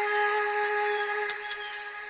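Background music: one long held note with light ticking percussion, softening near the end.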